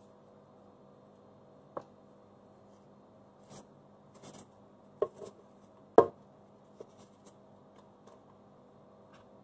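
Food being cut with a knife over a plastic blender jug: a few light rustles and short knocks, the loudest about six seconds in. A steady low hum underneath.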